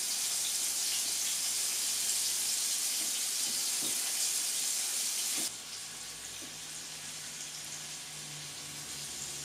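Pieces of wild boar meat sizzling in hot lard in a frying pan, a steady hiss. It turns suddenly quieter about five and a half seconds in.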